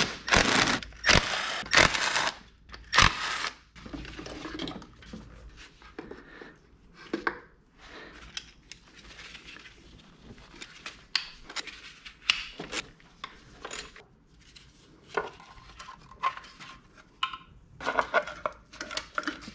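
Hand-tool work on an engine: a ratchet and socket on bolts, with metal parts and tools clinking and clattering in a run of sharp clicks and knocks, busiest in the first few seconds.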